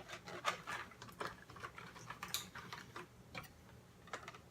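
Soft, irregular clicks and taps of a die-cast action figure and its plastic packaging being handled.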